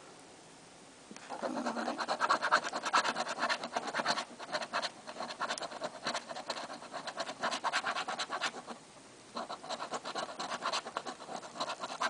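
A coin scratching the coating off a scratch-off lottery ticket in quick back-and-forth strokes. It starts about a second in and stops briefly about three quarters of the way through.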